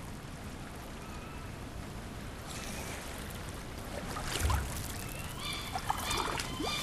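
Ambient outro of a recorded song: a steady noisy wash like running water, with a low thump a little past halfway and several short high chirps near the end.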